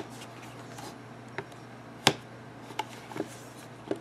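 A handful of light clicks and taps from hands handling a small DXG camcorder, working at the battery cover on its underside. The loudest click comes about two seconds in.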